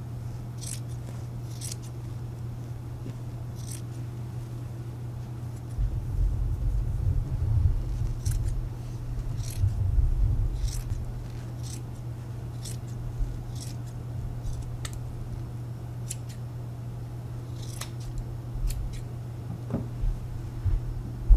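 Orange-handled scissors snipping through four folded layers of extra-loft batting, one short crisp snip after another at uneven intervals.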